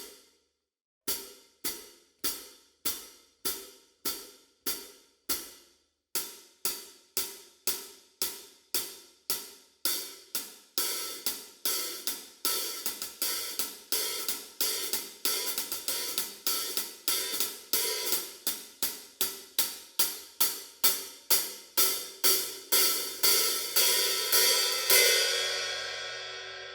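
14-inch SABIAN HH X-Celerator hi-hats struck in a steady beat, roughly two hits a second. At first each hit dies away before the next; from about ten seconds in the hits ring into one another as a continuous cymbal wash. The wash grows louder toward the end, then the last hit rings out.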